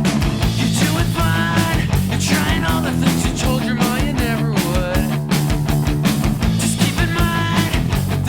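Background rock music with a steady, driving drum beat.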